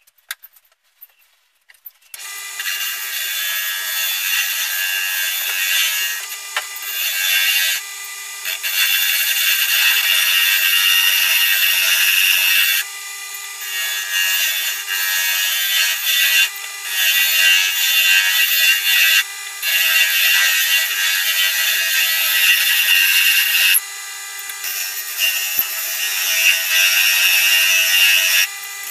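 A small wood lathe comes in about two seconds in and spins a celery wood pen blank. Sandpaper and then a skew chisel scrape and cut the turning wood in long stretches, with short breaks where the tool or paper is lifted off.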